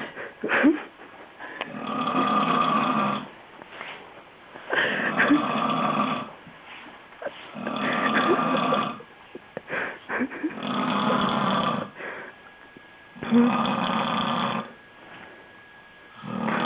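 Loud snoring in a steady rhythm: a snore about a second and a half long roughly every three seconds, five in all, with quiet breathing between and another snore starting at the end.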